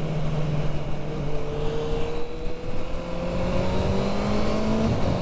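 Honda CB650R's inline-four engine through an IXIL Hyperlow XL aftermarket exhaust, pulling under acceleration with the revs climbing steadily, then an upshift near the end. Wind rush runs underneath.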